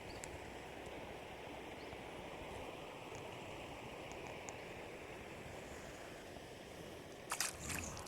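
River water flowing steadily, with a few brief sharp knocks or clatters about seven seconds in.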